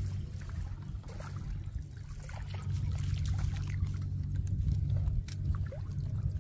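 Water splashing and trickling in small irregular bursts over a steady low rumble.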